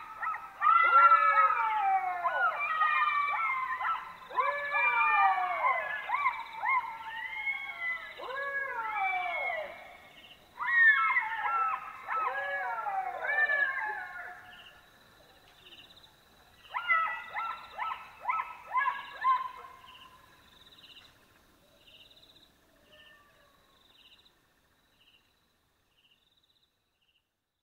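Black-backed jackals howling in chorus: several overlapping wailing calls that rise and fall in pitch. After a short pause, about two thirds of the way through, comes a burst of shorter calls, and then the calling dies away.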